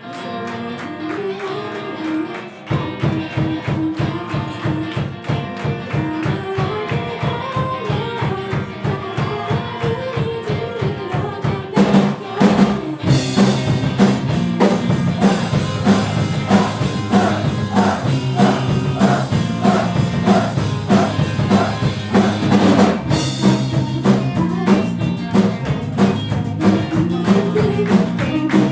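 Live rock band playing: a thinner opening, then a steady driving beat comes in about three seconds in, and the full band plays louder from about twelve seconds in.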